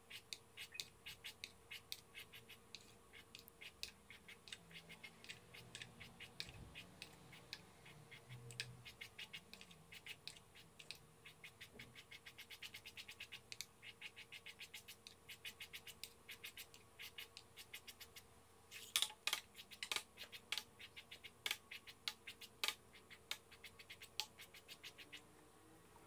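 A thin wooden stick dipped in food colouring scratching across drawing paper in quick strokes: a rapid run of faint scratchy ticks, with a few louder clicks in the last third.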